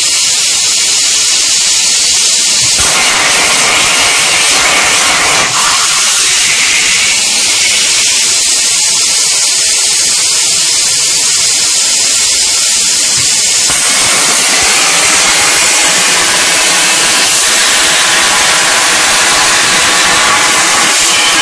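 Plasma cutter's arc cutting 2 mm sheet metal at about 25 amps on a CNC table: a loud, steady hiss that grows fuller and rougher about three seconds in and again from about fourteen seconds on.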